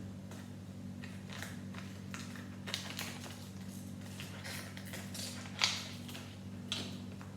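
Small plastic toy packaging being handled: irregular rustling and crinkling with a few sharper crackles, the loudest a little past halfway and another near the end, over a steady low hum.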